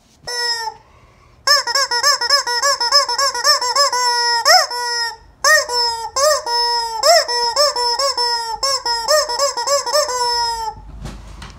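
Squeaky rubber chicken toy squeezed over and over: one short squeak, then fast runs of squeaks, several a second, with a couple of longer drawn-out squeals. It stops shortly before the end with a faint low thump.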